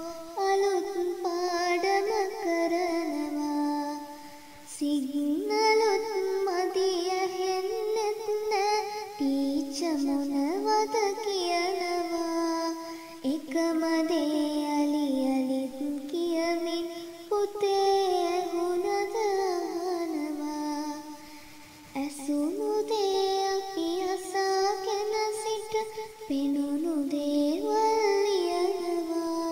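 A high solo voice singing a song with Sinhala lyrics, in long melodic phrases with short breaks about 4 and 21 seconds in.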